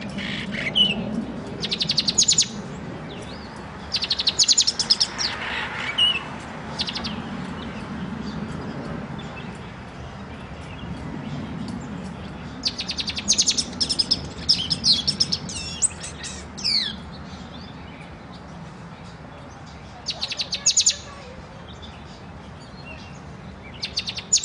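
Caged black-and-white pet songbird singing in short bursts of rapid, very high trills every few seconds, with a couple of falling whistled notes about two-thirds of the way through.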